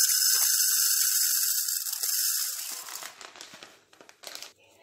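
Dry toor dal (split pigeon peas) poured into an aluminium pressure cooker, a steady hissing rattle of the lentils hitting the metal pot that stops about three seconds in, leaving a few faint clicks.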